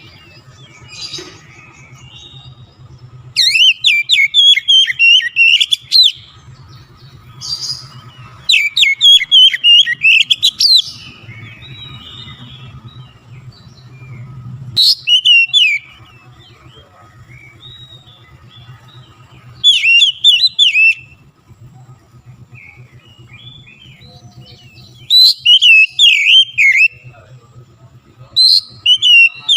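Oriental magpie-robin (kacer) singing in loud bursts of rapid, varied whistled phrases, about six bursts a few seconds apart. A faint steady hum runs underneath.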